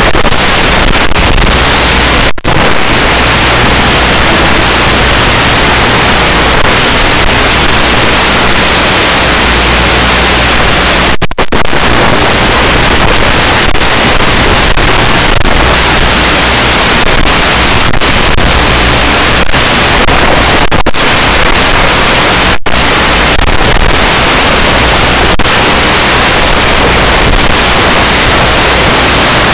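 Loud, steady static hiss with no distinct tones, cutting out for an instant three times.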